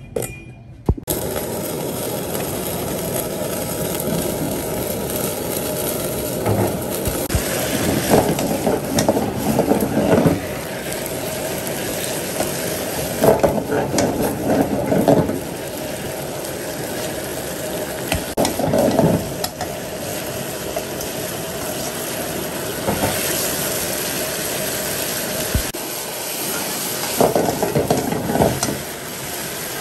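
Meat stir-frying in a hot pan: a steady sizzle, with louder stretches of stirring every few seconds.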